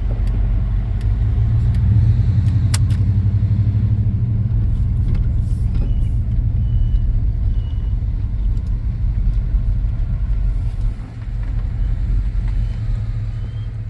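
Car running on the road, a steady low rumble of engine and road noise.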